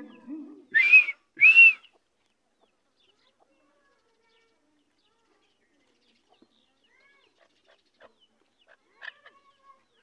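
Francolin (teetar) giving two loud, shrill calls in quick succession about a second in, each a short arched note. Near the end come a few faint clicks and one short, soft call.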